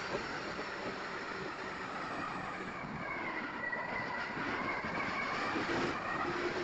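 Onboard sound of an E-flite Twin Otter RC plane in flight: a steady rush of wind on the tail-mounted camera's microphone, with the whine of its twin electric motors and propellers, which dips in pitch and comes back up about halfway through.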